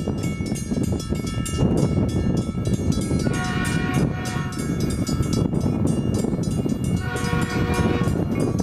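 Metrolink commuter train approaching and sounding its horn in two blasts of about a second and a half each, the first about three seconds in and the second about seven seconds in. A continuous low rumbling noise runs under it.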